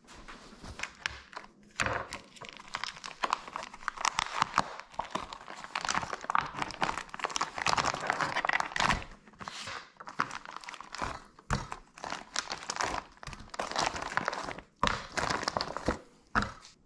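Clear plastic film on a tray pack of raw chicken thighs crinkling and tearing as it is pulled open and handled: a fast, irregular run of crackles, with a few sharper knocks among them.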